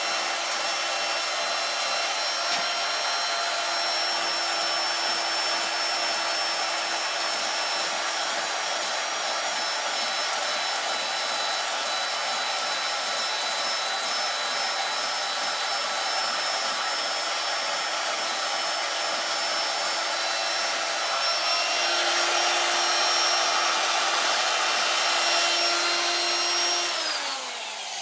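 Electric motor running steadily with a hiss and a constant hum, growing a little louder about three-quarters of the way through, then switched off and winding down just before the end.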